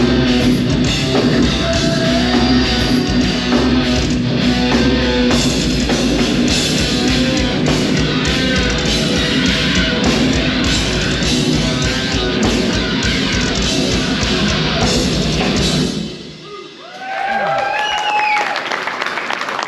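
Heavy metal band playing live: distorted electric guitars, bass and drum kit, loud and dense, stopping abruptly about three-quarters of the way through. After a short pause a voice calls out with a rising and falling pitch, and the crowd begins to react.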